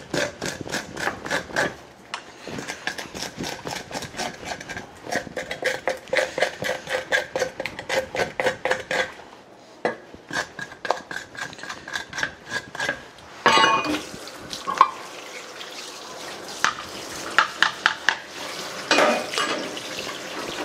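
Kitchen knife scraping scales off a fish head on a plastic cutting board, in quick repeated strokes of about four or five a second with a short pause midway. The scales come off in large numbers and must all be removed. After a sharp knock about 13 seconds in, tap water runs steadily under a few more scrapes.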